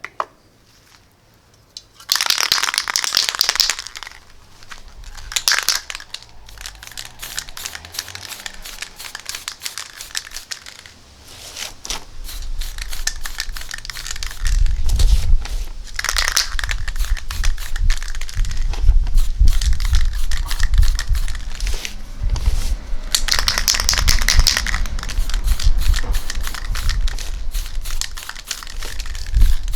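Aerosol spray-paint can being shaken, its mixing ball rattling in quick strokes, with bursts of spray hiss as bronze paint goes onto a plastic case. A low rumble joins about twelve seconds in.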